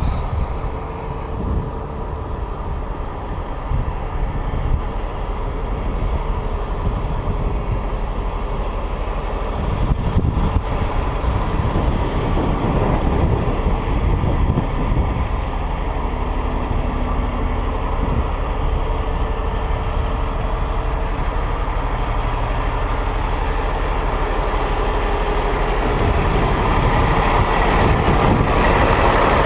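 Peterbilt 389's Cummins ISX-15 diesel engine running, slowly getting louder toward the end.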